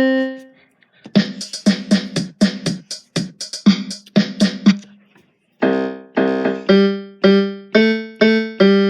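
A piano-type keyboard being played: a single note, then a quick run of notes, a short pause, and then a steady pattern of repeated notes about two a second, each ringing and fading.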